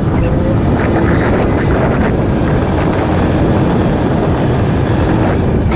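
Wind buffeting the phone's microphone on a moving motorcycle, with the engine running steadily underneath.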